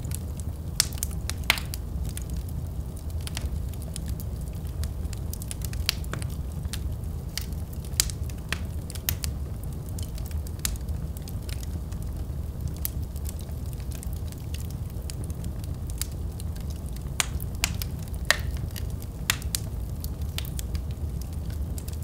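Wood logs burning in a fireplace: a steady low rumble from the flames with irregular sharp crackles and pops, a few louder pops standing out.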